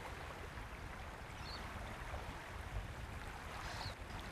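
Faint steady background hiss with a low rumble, and a few brief faint high chirps.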